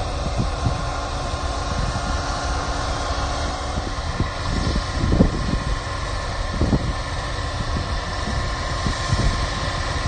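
Claas Trion 650 combine harvester working in the field while unloading grain: a steady machine drone with a thin steady whine. Gusts of wind rumble on the microphone, strongest about five and seven seconds in.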